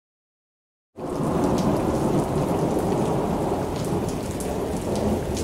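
Recorded thunderstorm: steady rain under a low rumble of thunder, starting abruptly about a second in, with scattered sharp drop ticks.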